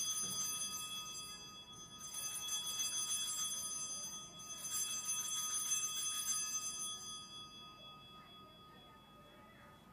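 Altar bells shaken in three peals of about two seconds each, marking the elevation of the consecrated host. The ringing fades out a couple of seconds before the end.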